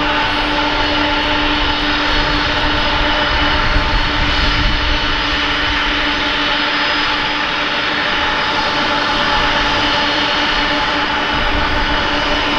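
Boeing 747-400 freighter's jet engines running at taxi power: a steady jet whine, several held tones over a broad rush.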